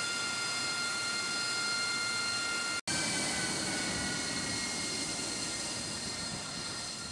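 AV-8B Harrier II jet engine (Rolls-Royce Pegasus turbofan) running with a high whine of several steady tones over a rush of noise. After a sudden break in the sound about three seconds in, the whine drops slightly in pitch, a lower rumble swells, and the level slowly falls.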